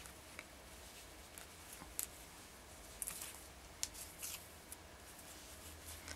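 Faint, scattered small clicks and rustles of hands working thread and beads on a soutache bracelet, over a low room hum.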